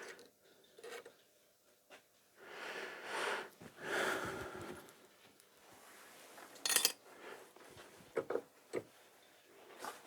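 Quiet handling of loose metal gearbox parts: two soft rubbing or scraping sounds, then a sharp clink and a few lighter clicks near the end.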